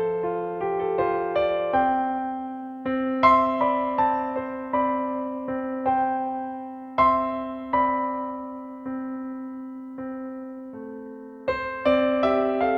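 Background music: a slow, gentle piano melody played over sustained bass notes.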